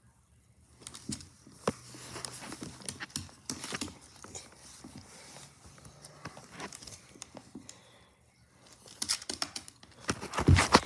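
A Pomeranian chewing and tearing at a crinkly red toy, with irregular crinkling and small clicks. It pauses briefly, and a few louder knocks come near the end.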